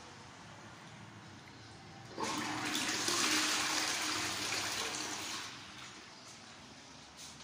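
Toilet flushing: a sudden rush of water starts about two seconds in, swirls through the bowl for about three seconds, then dies away.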